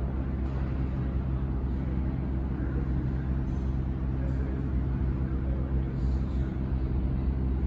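Subway train rumbling steadily through the tunnel as it approaches the station, with a steady low hum and no sudden sounds.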